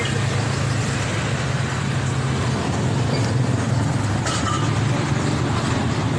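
Yamaha Fino scooter's engine running steadily with a low hum, and a short metallic clink about four seconds in.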